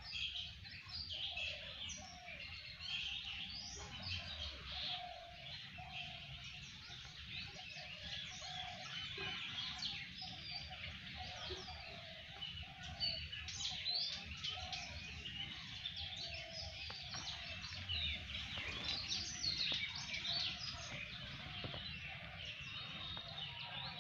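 Many small birds chirping and twittering continuously in an overlapping chorus, with a low rumble underneath.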